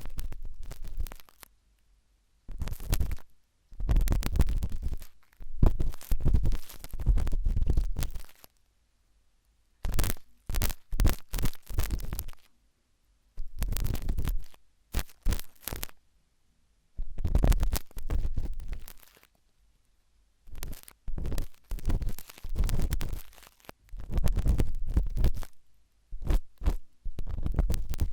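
Sharp toothpick scratching and scraping in an ear during ASMR ear cleaning, in bursts of about one to two seconds separated by short silent pauses.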